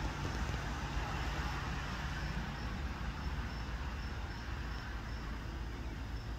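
Steady outdoor background rumble and hiss, with a faint high-pitched chirp repeating about three times a second through the second half.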